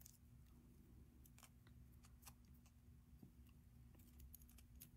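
Near silence: faint room hum with a few soft ticks from hands working hemp cords through a knot behind a metal button on a beaded bracelet, the ticks clustering near the end.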